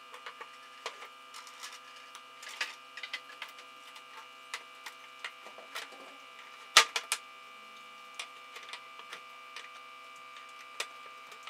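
Wooden mallet knocking on a clamped wooden slab glue-up, a run of sharp knocks with the loudest about two-thirds of the way through, after a scatter of lighter clicks and taps from the pipe clamps being worked. A steady hum runs underneath.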